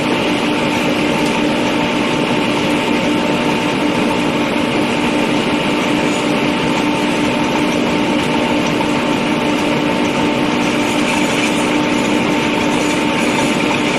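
Compressed-air well drilling rig and its air compressor running: loud, unchanging machine noise with a steady hum.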